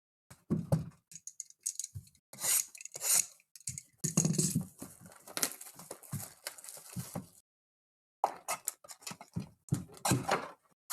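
Foil card packs and a cardboard hobby box being torn open and handled: irregular tearing, crinkling and clicking, busiest in the middle of the stretch.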